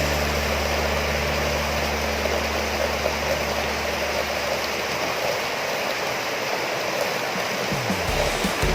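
Steady rain falling, an even hiss. Soft background music plays under it, and its low held notes fade out in the second half.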